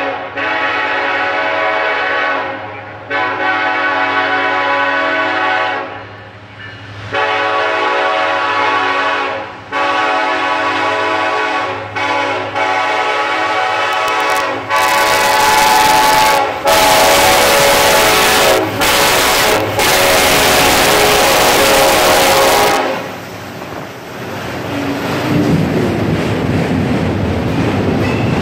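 EMD SD70ACe diesel locomotive sounding its air horn in a series of long blasts as it approaches, over the low drone of its engine. About halfway through it passes close by in a loud rush of noise with the horn still blowing. From about 23 s the autorack freight cars roll past with a steadier rumble and wheel clatter.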